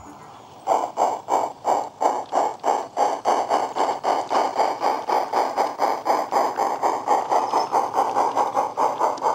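Simulated steam-locomotive chuffs from the MyLocoSound soundcard in a battery-powered 16mm-scale model Kerr Stuart locomotive. The chuffs are timed by a chuff cam on the motor block. They start about a second in as the loco pulls away, then quicken from about three to about five a second as it gathers speed.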